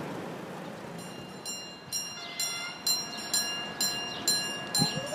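Railway level-crossing warning bell ringing in a steady beat of about two strikes a second, starting about one and a half seconds in, over a low background rumble.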